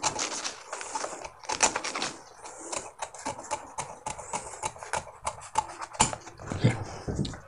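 Tailor's scissors snipping through brown pattern paper, a run of short, uneven cuts and paper crackles as the armhole curve of a blouse pattern is trimmed round. The loudest snip comes about six seconds in.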